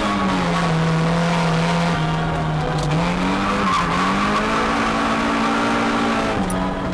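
Toyota AE86 engine at high revs, heard from inside the cabin while the car drifts. Its pitch holds steady, dips briefly about three seconds in, then climbs and holds high before dropping near the end. Tyres squeal under the engine note.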